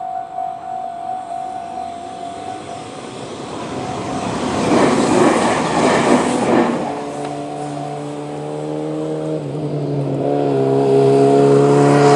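Level-crossing warning bell with a steady ringing tone that stops about three seconds in, followed by road vehicles driving over the crossing. One passes with a swell of tyre and road noise, then a vehicle engine runs steadily, shifts in pitch twice and grows louder near the end.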